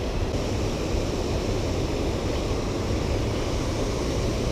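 Steady rush of water spilling over a small stone waterfall into the river.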